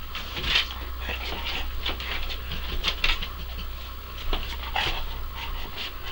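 Small dog panting in short, irregular noisy puffs.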